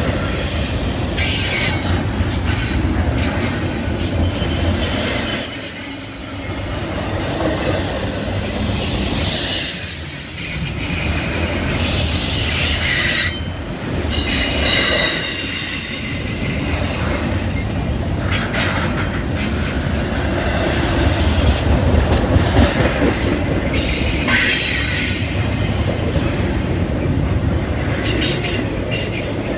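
Norfolk Southern freight train's cars rolling past with a steady rumble and clatter of wheels on rail, and high-pitched wheel squeal that comes and goes.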